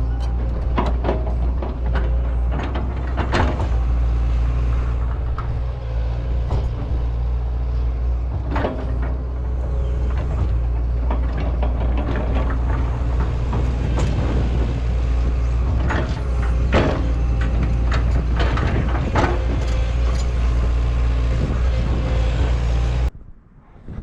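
Excavator's diesel engine running steadily under work, with frequent irregular metallic clanks and knocks from the machine moving and digging. The sound stops abruptly near the end.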